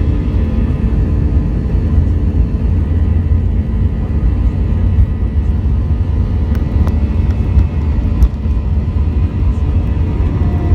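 Airbus A321 jet engines and airframe rumble heard from inside the passenger cabin: a loud, steady low rumble with several steady engine tones on top and a few faint ticks.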